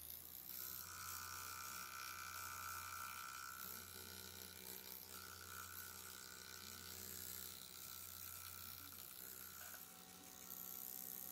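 Small electric drive of a fluid-driven catheter system whirring steadily while it bends the catheter shaft, its tone changing a few times as the motion changes.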